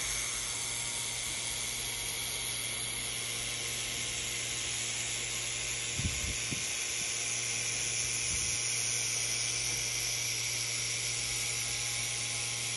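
Handheld 1000 W laser welder welding a seam on 2 mm stainless steel sheet: a steady hiss from the welding head, with a low steady hum underneath. Two faint knocks come about midway.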